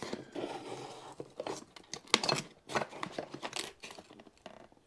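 A long cardboard box being handled and opened: cardboard rustling and scraping, with a string of sharp irregular knocks and clicks, loudest about two seconds in. The box holds the printer kit's aluminium extrusions.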